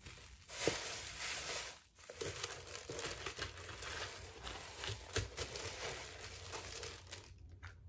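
Tissue paper and packaging crinkling and rustling as a woven straw pouch is handled and tucked into a cardboard gift box. The rustling comes in two stretches, with a short lull about two seconds in, and fades near the end.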